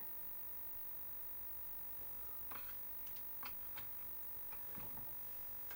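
Faint, steady electrical hum with a few soft clicks and taps from a circuit board being handled, several in the second half.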